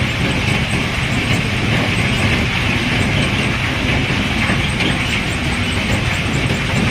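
Pebble cargo being unloaded from a sand ship: steady, continuous machinery noise with a dense, rough texture.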